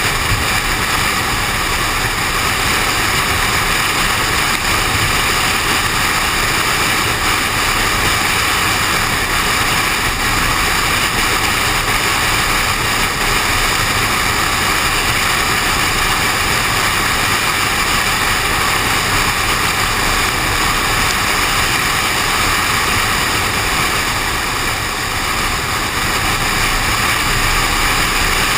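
Steady, loud rushing noise of a car out in the rain, picked up by a GoPro suction-cupped to the car's window, dipping slightly about 25 seconds in.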